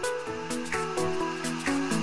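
Background music: an electronic track of pitched notes changing in a steady rhythm.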